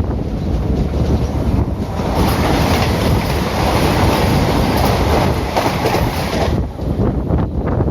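Indian Railways ICF passenger coach running on the track, with wheel-on-rail rumble and rushing wind. The rush grows louder about two seconds in and eases off near the end.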